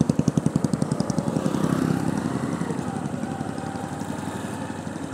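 Honda motorcycle engine running at low speed with a quick, even exhaust beat. The beat is strongest at first and grows softer and steadier as the bike rolls slowly on.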